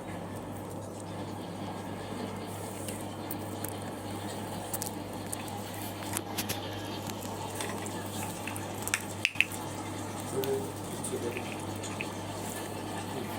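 Cats eating, with soft wet chewing and smacking sounds and scattered small clicks, a couple of sharper clicks about nine seconds in, over a steady low hum.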